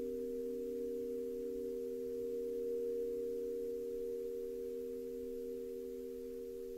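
Pythagorean tuning forks ringing together: three steady pure tones sounding at once, slowly fading.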